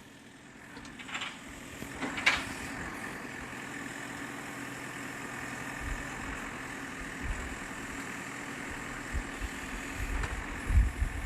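Backhoe loader's engine running steadily while it digs, with a sharp knock about two seconds in and several low thumps near the end.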